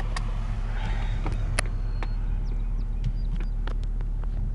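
Jeep 4.0-litre inline-six engine running steadily, heard from inside the cab, with scattered light clicks over it. The owner says this engine misfires at random.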